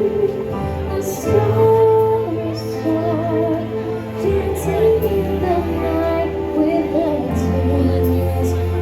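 Music with singing: a Christmas song sung by female and children's voices over a steady bass accompaniment, with held, gently wavering notes.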